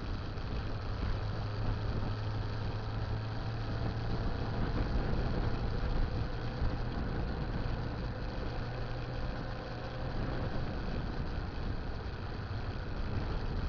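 Motorcycle engine running steadily at a constant low speed, a steady low hum under a wash of road and wind noise on the bike-mounted camera's microphone.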